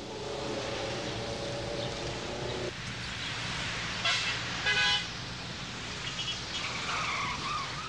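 City traffic with car horns: a long horn blast lasting nearly three seconds, then a shorter, higher honk about four seconds in, over the steady noise of traffic.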